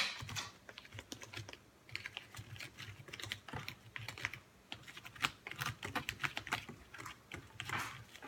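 Small spoon stirring graham cracker mix with water in the little squares of a plastic s'mores-maker tray: rapid, irregular light clicks and scrapes of the spoon against the tray.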